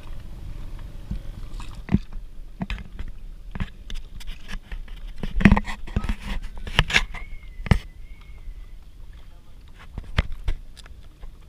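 Paddling a small wooden boat: irregular knocks and splashes of paddles against the hull and the water, the loudest about halfway, over a low rumble of water and wind.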